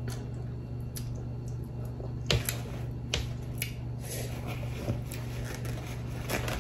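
Close-miked eating sounds: scattered small wet clicks and squishes of chewing and of fingers handling saucy seafood, over a steady low hum.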